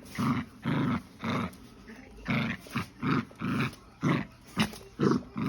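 Puppy barking in a quick run of short barks, about two a second.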